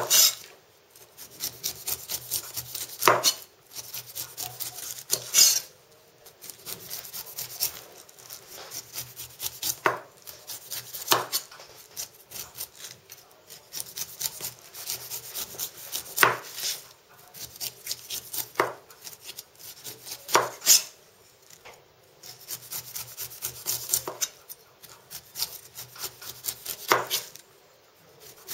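A kitchen knife pares the rind off a whole pineapple in runs of quick rasping, scraping strokes through the tough skin. Every few seconds there is a sharp knock as the blade comes down onto the plastic cutting board.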